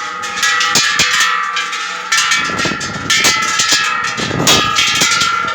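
Metal temple bells struck in quick succession, several strikes a second, their ringing tones overlapping and sustaining.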